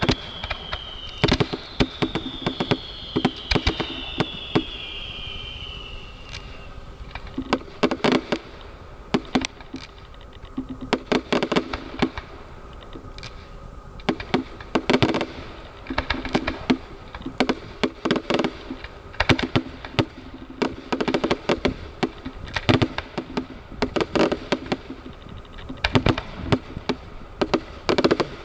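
Fireworks display: a fast, irregular run of sharp cracks and bangs throughout, with a few high whistles slowly falling in pitch during the first six seconds or so.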